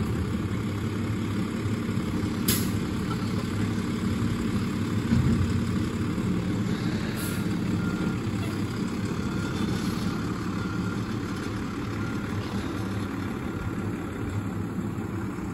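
Automated side-loader garbage truck running at the curb while it works its bin arm, with a sharp clank about two and a half seconds in; it then pulls away and its engine sound eases off slightly toward the end.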